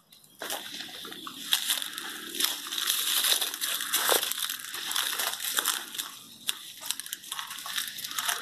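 Leaves and branches rustling and crackling as someone pushes through dense undergrowth. It is a continuous brushing rustle with many small snaps.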